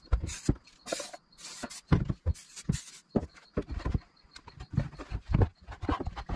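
Several short hisses of a WD-40 aerosol spray can in the first few seconds, among repeated knocks and clunks of a hollow black plastic airbox housing being handled, turned over and set down on a wooden workbench.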